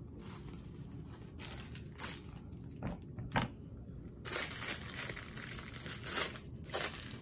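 Thin clear plastic bag crinkling as it is handled and opened, starting about four seconds in. Before that, a few light knocks.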